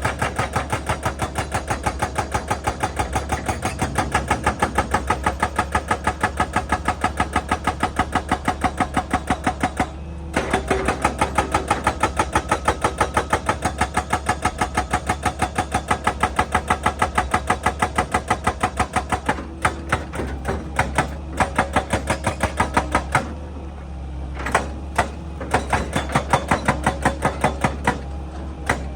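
Excavator-mounted hydraulic breaker hammering rock in a fast, even run of blows, about four a second, over the machine's steady engine hum. It pauses briefly about ten seconds in and works only in short bursts near the end.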